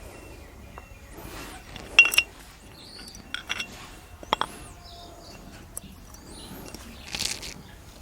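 Light metallic clinks and taps of motorcycle drum-brake shoes and their return springs being handled, the loudest about two seconds in, with a few more in the middle.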